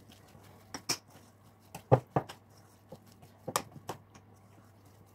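Spoon knocking against a ceramic mixing bowl while stirring thick batter with diced apple: a few short, sharp clicks, the loudest about two seconds in, over a faint steady low hum.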